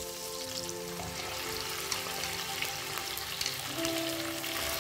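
Potatoes, onion and whole spices sizzling and crackling in hot mustard oil in a pan. Soft background music with long held notes plays underneath.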